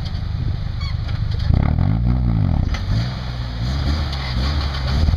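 Lifted pickup truck's engine pulling under load as it climbs a muddy slope on oversized mud tires: a steady low rumble at first, then about a second and a half in the revs rise and fall, in repeated surges that come every second and a half or so.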